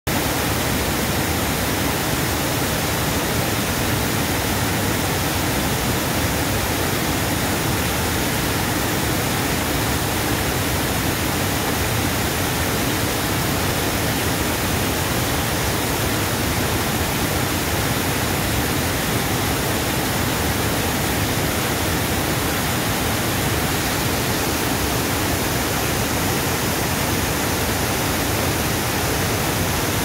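Water falling over the crest of a low weir and splashing into white foam below: a loud, steady, even rush with no breaks or changes.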